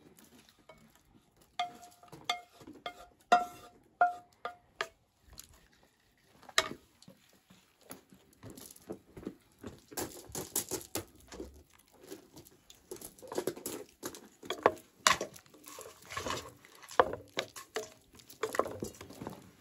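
A wooden spatula tapping a metal frying pan about seven times, each tap ringing briefly, as the fried quince is knocked out of it. After that the wooden spoon scrapes and clicks unevenly against an aluminium pot while stirring the stew.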